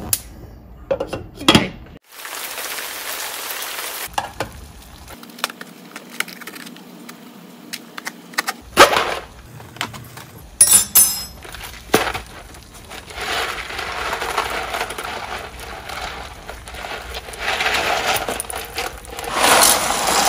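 A string of kitchen sounds: scattered clicks and clinks of a metal saucepan and lid, a cardboard macaroni-and-cheese box being opened, and a steady hiss of a pot of water boiling, with dry macaroni poured into the boiling water near the end.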